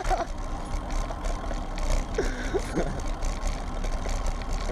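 Steady low rumble and outdoor noise of wind on a GoPro microphone, with a brief voice a little over two seconds in.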